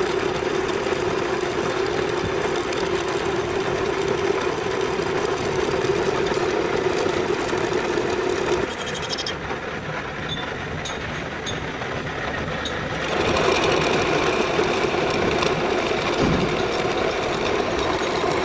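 Lathe running steadily with a constant machine hum. The sound drops and thins out for about four seconds in the middle, then comes back up.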